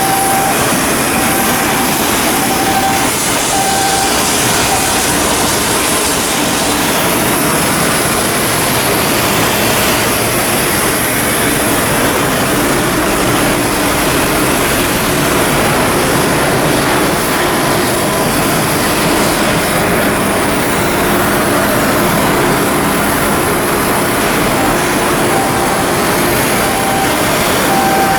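Steady, loud industrial machinery noise from shipyard construction work, with a repeating beeping tone near the start and again near the end.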